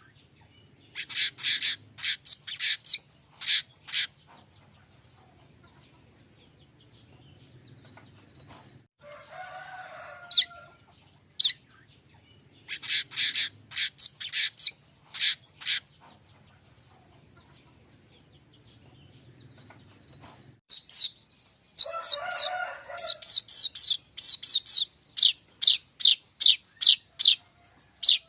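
Streaked weaver (manyar kembang) song: bouts of rapid, high chirping notes in quick series, one near the start, one at about 12 seconds, and the longest from about 21 seconds in. A lower call sounds twice in between, at about 10 and 22 seconds.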